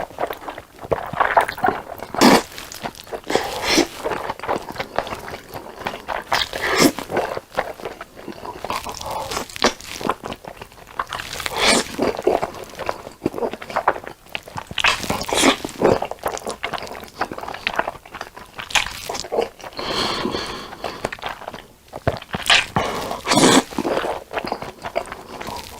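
Close-miked eating of black bean noodles: noodles slurped in long pulls and chewed with wet, smacking bites, in irregular bursts.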